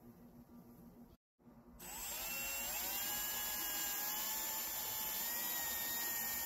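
Hand drill fitted with a paint-mixing rod starting up about two seconds in, its whine rising in pitch as it spins up, then running steadily as it stirs paint in a bucket.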